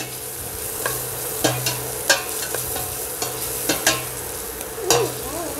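Diced peppers and onion sizzling in oil in a stainless steel pot while a metal spoon stirs them, with a steady hiss and a few sharp clinks and scrapes of the spoon against the pot.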